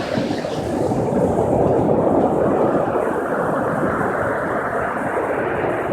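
Surf washing on the beach: a steady rushing of waves that swells slightly about a second in.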